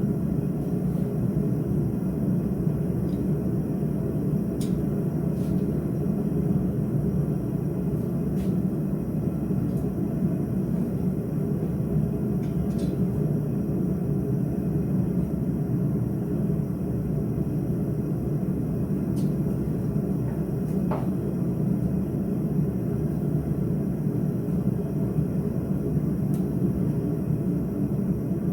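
A blacksmith's forge running with a steady, even roar, with a few faint clicks scattered through it.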